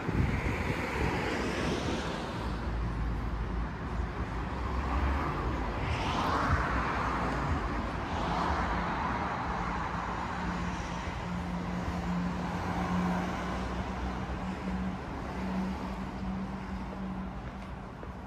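Street traffic: cars passing on the road, their tyre and engine noise swelling and fading several times, with a steady low hum coming in about eight seconds in.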